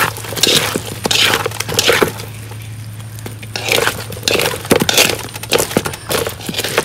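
Crisp fried rice-flour balls and ring cakes being tossed with bamboo chopsticks and a silicone spatula in a metal wok as they are coated in sugar syrup. Irregular clicks and clatters come from the hard shells knocking against the wok and each other, with a quieter lull about halfway through, over a steady low hum.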